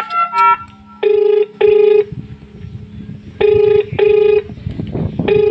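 Telephone ringback tone: a ring-ring double pulse repeating about every two and a half seconds, the sign of a call ringing unanswered at the other end. A few short electronic beeps sound at the very start as the call is placed.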